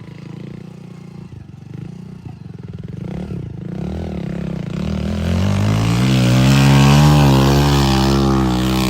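Heavy diesel engine of an earth-moving machine revving up and working hard under load, its pitch wavering as it pulls. It builds from about three seconds in and is loudest near the end.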